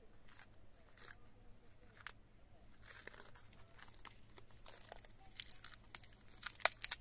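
Clear plastic grafting wrap being peeled and unwound by hand from a mulberry graft union: irregular crinkling and crackling, with a quick run of sharper crackles near the end.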